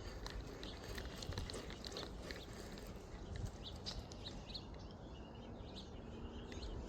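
Faint outdoor ambience: a steady low rumble with scattered short, high chirps and ticks.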